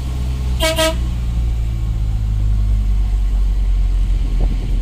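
Truck engine running at low revs, heard from inside the cab as a steady low drone. A short double beep sounds about a second in.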